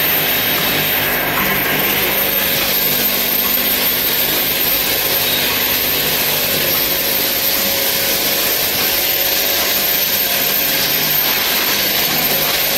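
Eye-drop bottle filling and capping machine running, a steady mechanical whir with a strong hiss.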